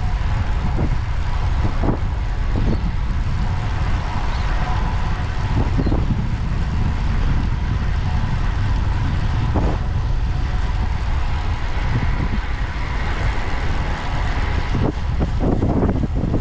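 Wind buffeting the microphone while moving fast downhill, over a steady low rumble, with a few sharp knocks scattered through and more of them near the end.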